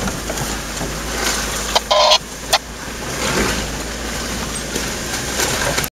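A 4x4 driving slowly along a rough woodland trail, heard from inside the cab: steady engine and tyre rumble with small knocks and rattles. About two seconds in, a brief loud squawk cuts through.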